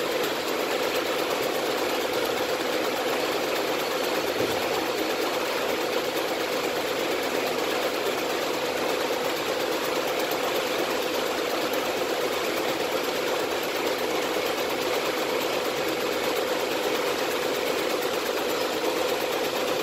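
Tajima multi-needle commercial embroidery machine running steadily, its needle stitching through the fabric of a backpack, with an even mechanical hum.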